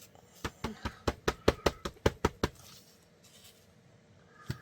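A stamp block tapped quickly against a dye ink pad, about a dozen light taps in two seconds, then a single tap near the end.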